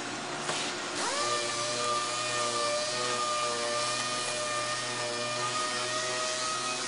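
6-inch air orbital sander (12,000 RPM) spinning up about a second in, its pitch rising quickly and then holding at a steady high whine.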